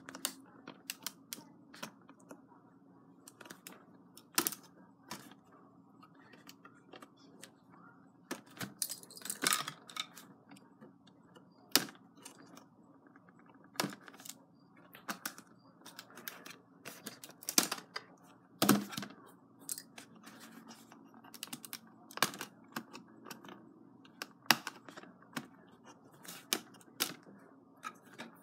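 LEGO plastic bricks and baseplate being handled: irregular sharp plastic clicks and clatters as bricks are pressed on and the stand is picked up and moved, over a faint steady low hum.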